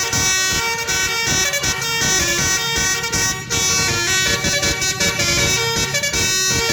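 A bus's telolet horn, a multi-tone air horn playing a melody: loud, with stacked tones that switch notes every half second or so and run on without a break.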